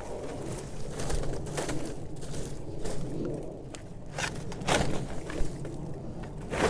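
Irregular rustling, scraping and crackling as sweet potato vines and a wire support are pulled and handled, with a few sharper clicks and snaps.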